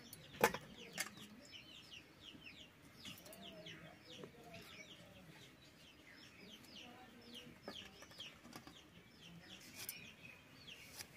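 Chickens clucking and birds chirping, with many quick falling chirps throughout. Two sharp knocks stand out about half a second and a second in.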